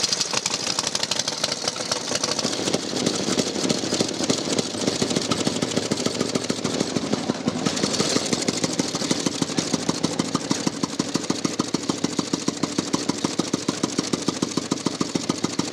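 A veteran motorcycle engine running with an uneven beat. About halfway through it gives way to the 1903 Humber's 350cc single-cylinder engine ticking over with a slow, even beat of roughly five firing strokes a second.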